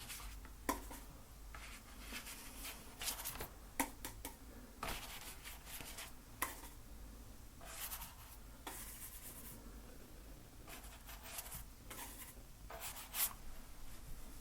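Scratchy strokes of a painting tool working over a canvas, coming in irregular short bursts with a few sharp taps between them.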